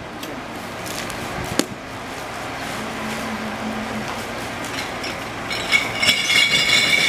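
Steady background noise with a sharp click about a second and a half in, then a loud, high-pitched squeal of several tones together near the end, lasting about a second and a half.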